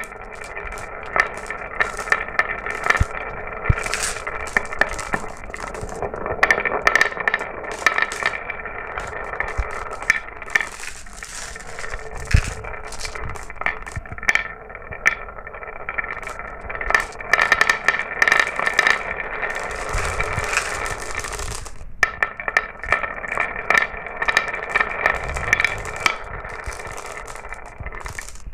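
Glass marbles rolling down a marble run track: a steady rolling whir with dense clicking and clacking as they knock against each other and the track, broken briefly once near the end.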